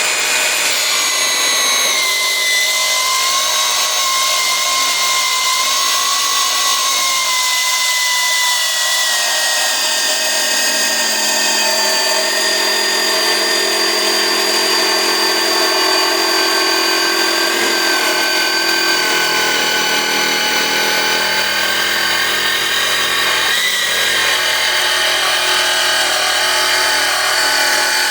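Milwaukee M18 cordless 8-inch metal-cutting circular saw running under load through 1-inch steel, a steady loud cutting whine with a high ringing edge. Its pitch sags a little about eight seconds in as the blade bites harder.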